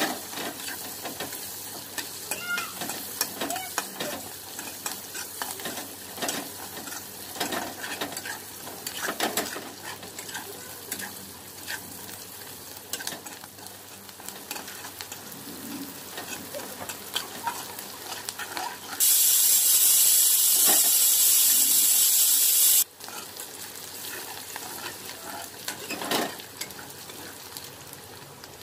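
Onion and green chillies sizzling in oil in a wok while a metal spatula stirs and scrapes the pan with short clicks. About two-thirds of the way through, a pressure cooker cooking rice lets out a loud hissing steam whistle for about four seconds, which cuts off suddenly.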